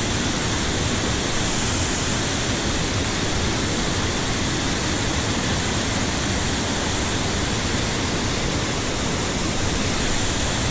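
Steady rush of flowing mountain-stream water, an even noise with no breaks.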